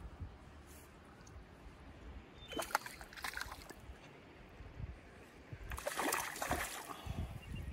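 Hooked rainbow trout thrashing at the surface of a shallow stream as it is played in to the landing net, over a low rush of moving water. There are two bouts of splashing, about two and a half seconds in and about six seconds in; the second is the louder.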